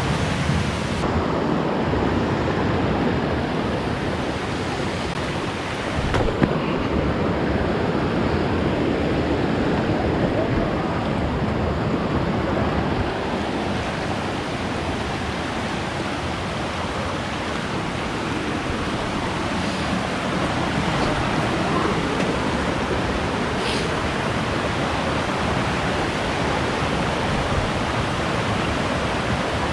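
Creek water rushing steadily over and between rocks, a constant noise with a single brief knock about six seconds in.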